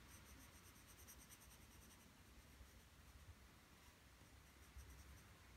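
Faint scratching of a graphite pencil on drawing paper, quick repeated hatching strokes laying in dark shading, busiest in about the first two seconds and fainter after, over low room hum.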